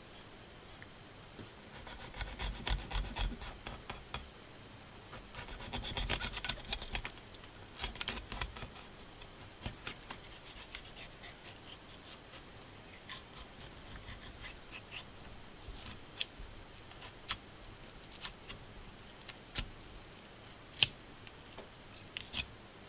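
Kitchen knife skimming the rib bones off a largemouth bass fillet: rasping, crackling strokes as the blade scrapes along the ribs, in bursts a few seconds apart. Later come scattered single ticks and one sharper click near the end.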